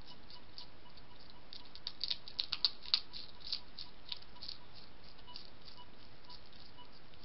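Hedgehogs crunching dry kitten biscuits: a run of crisp, sharp clicks, densest and loudest about two to three seconds in, then thinning out, over a steady hiss.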